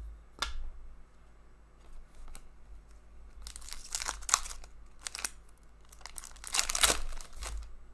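Foil trading-card pack torn open and its wrapper crinkled by hand: a short click about half a second in, then two bursts of tearing and crinkling, around four seconds in and around seven seconds in.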